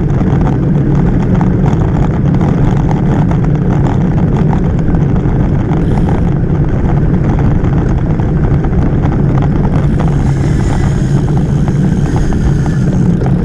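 Wind buffeting the microphone of a camera on a moving road bicycle, a steady low noise with the hiss of tyres on tarmac under it.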